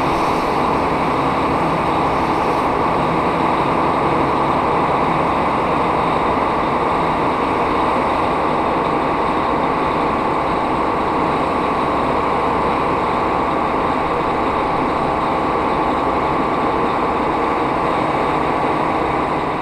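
Semi-truck tractor's diesel engine running steadily while driving slowly, heard from inside the cab with road and cab noise.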